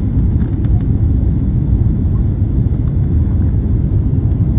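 Steady low rumble of a passenger airliner's cabin in flight: engine and airflow noise heard from inside the aircraft.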